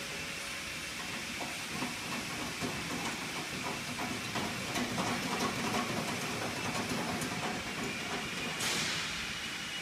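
Fabric inspection machine running: a steady hiss and hum from its motor and rollers, with irregular light clicks and knocks as the side handwheel is worked. A brief sharp hiss comes about nine seconds in.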